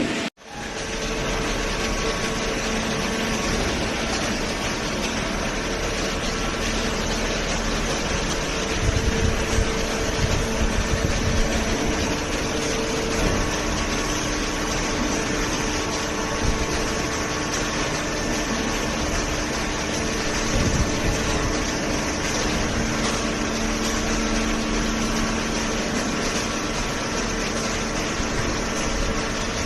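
Hydraulic cardboard baler's power unit running with a steady hum, with a louder low rumbling around 9 to 12 seconds in.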